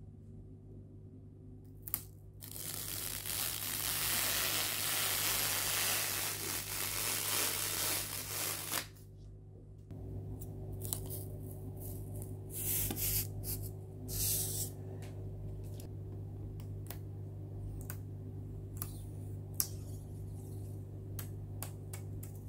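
Clear plastic protective film being peeled off the surface of an XP-Pen Star 03 V2 drawing tablet: a long, even peeling hiss lasting about six seconds, then a string of short crackles and clicks as more film lifts away, over a faint low hum.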